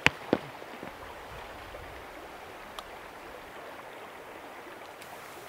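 River water flowing steadily over the rocks. Right at the start come two sharp knocks, boot footfalls on the boulders as he steps across them.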